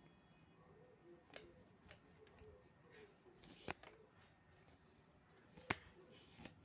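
Near silence broken by a few sharp clicks or taps, four or so spread out, the loudest about two-thirds of the way through.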